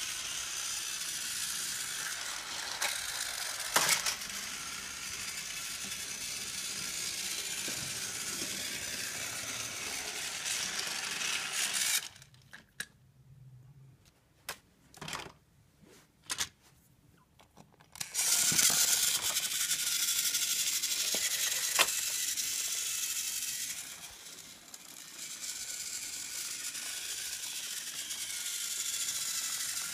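Battery-powered Thomas & Friends TrackMaster toy engine's motor and gears running with a steady high whirring rattle as it runs along plastic track. The running stops about twelve seconds in, leaving a few separate clicks, and starts again about six seconds later.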